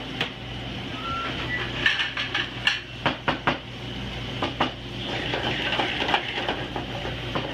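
Diced onions sizzling in oil in an aluminium sauté pan over a gas burner. A cluster of sharp knocks comes from the wooden spoon and the metal pan as the onions are stirred. A steady low hum runs underneath.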